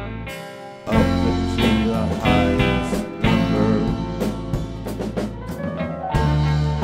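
Background music: an instrumental stretch of a song, with a drum kit and guitar, between sung lines.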